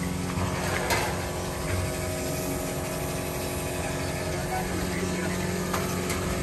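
Tractor engine idling steadily, with a light knock or two about a second in.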